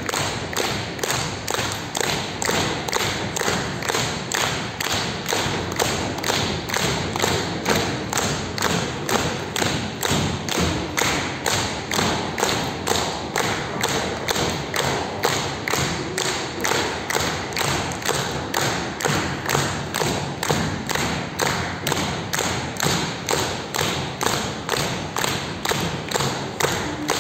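A steady beat of thumps, about two a second, over a constant wash of sound.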